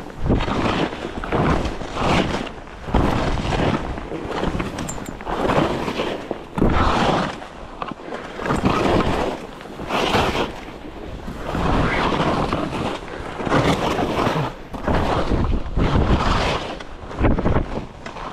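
Skis scraping and hissing through snow in a run of quick turns, a surge of noise with each turn about once a second, over steady wind rushing on the microphone.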